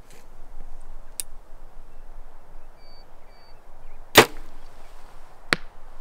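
A compound bow is shot about four seconds in: a loud, sharp snap of the string with a short ring. About a second and a half later comes a shorter, fainter smack, the arrow striking the distant target.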